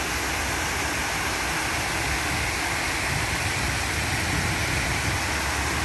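Steady rush of a large fountain: many water jets spraying up and splashing down into a shallow pool.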